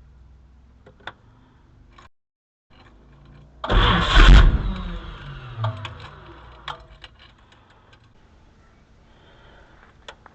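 1959 Ford Thunderbird's V8 briefly firing up: a loud burst about four seconds in that falls in pitch over the next two seconds as the engine winds down, followed by a few light clicks.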